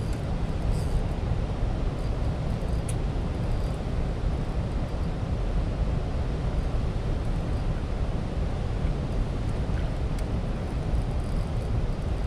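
Steady rush and low rumble of fast, churning water flowing out below a dam.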